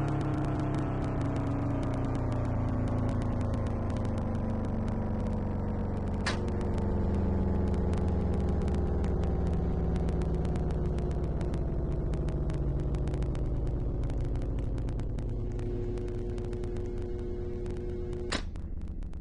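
Tornado warning siren winding down, its tone falling slowly and steadily, with two sharp clicks about six seconds in and near the end.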